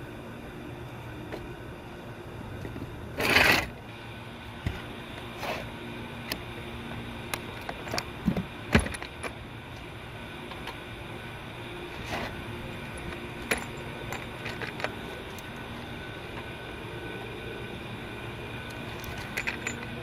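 Scattered light metallic clinks and knocks of condenser parts and tools being handled, with a brief rushing noise about three seconds in and a couple of sharp knocks a little before the middle. Under it all runs a steady mechanical hum.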